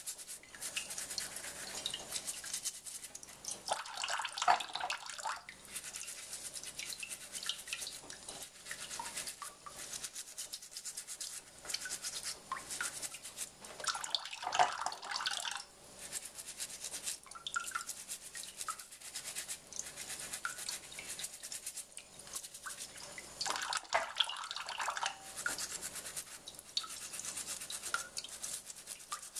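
Toothbrush bristles scrubbing the peel of an orange in rapid scratchy strokes, with a thin stream of tap water running and splashing into a steel pot in the sink now and then.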